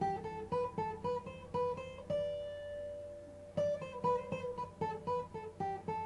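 Background music: a plucked string instrument picking out a melody note by note, with one note left to ring for about a second and a half midway before the quick picking resumes.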